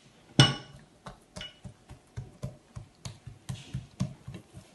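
Hands working buttered dough in a glazed earthenware dish. There is one sharp knock about half a second in, then a quick run of soft pats, about four a second, as the dough is pressed flat.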